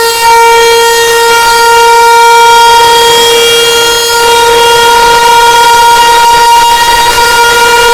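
A loud, steady alarm tone from a fictional Emergency Alert System warning: a single held pitch with many overtones that does not rise or fall.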